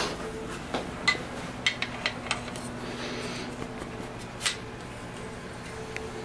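Light metallic clicks and taps of a piston ring and hand tools being handled while the ring's end gap is fitted and filed, with a short rasp about three seconds in. A steady low hum runs underneath.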